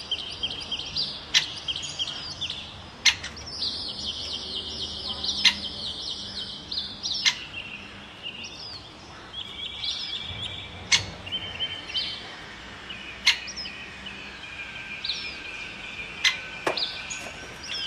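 Birds chirping and trilling in quick high phrases, with sharp clicks every couple of seconds.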